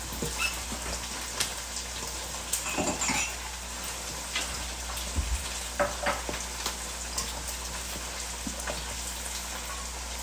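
Gloved hands tossing sauce-coated glass noodles and vegetables in a stainless steel bowl: wet squishing with scattered light crackles and taps.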